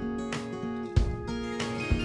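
Background music with guitar and a low beat thumping about once a second.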